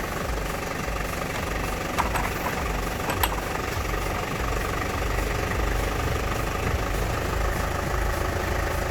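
A motor running steadily with a low, pulsing drone, with two sharp clicks about two and three seconds in.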